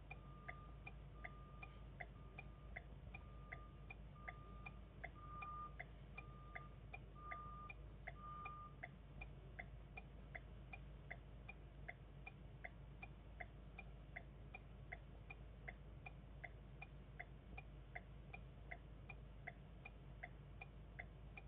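Faint, very regular ticking about twice a second from a bus's turn-signal or hazard flasher. Over the first nine seconds or so it runs together with a row of short, evenly spaced beeps.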